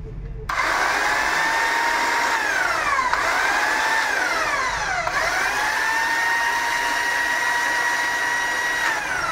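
Stihl HSE 52 electric hedge trimmer running with no load, its motor and back-and-forth blades giving a steady whine. It starts about half a second in and winds down twice as the switch is let go and pressed again. Then it runs steadily until it winds down near the end.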